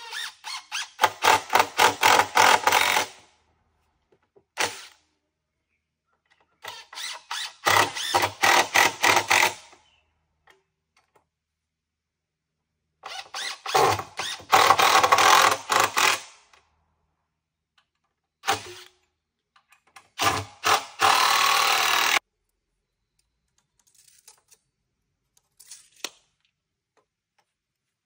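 Cordless DeWalt drill/driver driving screws into timber framing in four bursts of two to three seconds, each made of quick pulses of the trigger, with a couple of short blips between.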